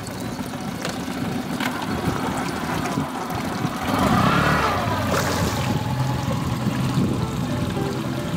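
A 20 hp Tohatsu outboard motor running steadily, growing louder about four seconds in.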